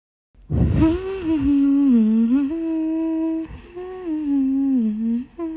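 A person humming a slow tune in two phrases, holding notes and sliding between them, with a short extra note near the end.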